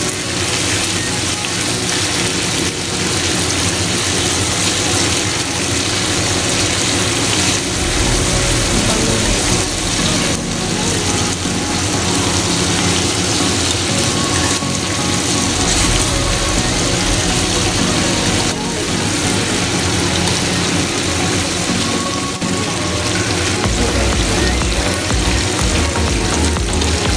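Background music over the sizzle of thin-sliced beef frying in a pan.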